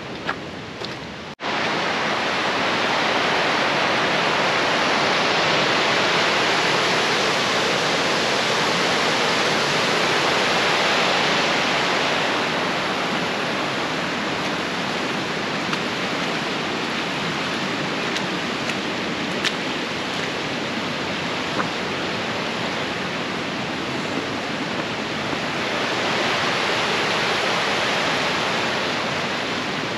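Steady rushing water of a mountain stream. It sets in suddenly about a second in and grows louder twice.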